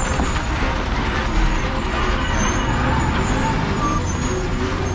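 Heavy lorry's diesel engine running, with steady road traffic noise.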